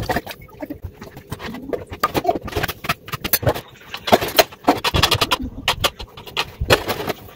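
Dishes being washed by hand in a stainless steel sink: irregular clinks and knocks as a plastic bowl, dishes and a spoon are handled against each other and the sink.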